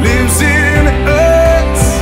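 Background music: a Christian worship song with a steady bass, drums with cymbal strokes, and a wavering melody line.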